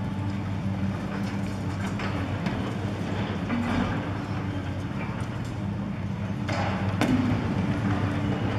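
Caterpillar 5080 excavator's diesel engine running steadily under load while its hydraulic demolition shear crunches concrete, with a few short knocks and rattles of breaking and falling debris.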